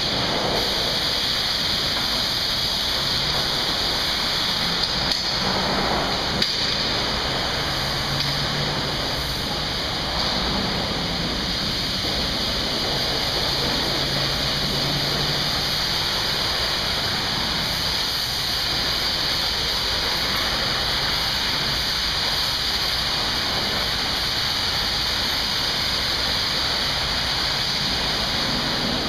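Water spraying onto a truck at a truck wash: a steady rushing hiss that holds at one level throughout, with a faint low hum coming and going underneath.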